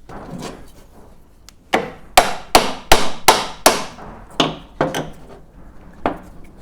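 Hammer blows, a quick string of about eight sharp strikes roughly a third of a second apart, then a few more near the end, typical of knocking the front wheel spindle (axle) out of a motorcycle's forks.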